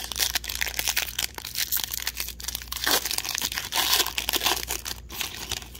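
Foil wrapper of an Upper Deck Parkhurst hockey card pack being torn open and crinkled by hand: a dense run of crackling and tearing that stops abruptly near the end.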